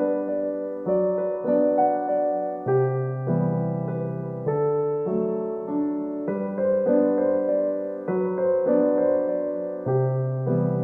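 Gentle solo piano music playing slow chords with a soft melody.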